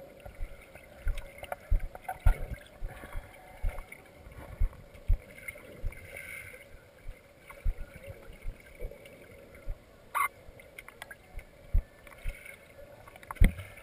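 Water sloshing and gurgling with irregular low bumps and knocks, a sharp click about ten seconds in and a heavier thump near the end.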